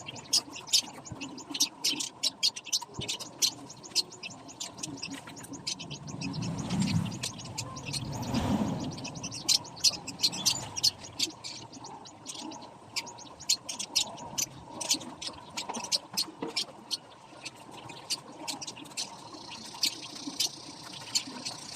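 Small pet parakeets chirping: a dense run of short, high chirps, several a second, throughout.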